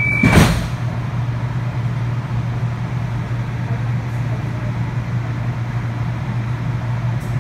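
Light rail car's doors closing with a short, loud thump just after the start, then the car's steady low hum as it stands at the platform with doors shut, ready to depart.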